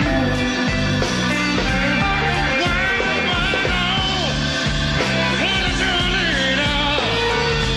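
Live electric blues band playing, with electric guitars to the fore. A man sings into the microphone in the second half.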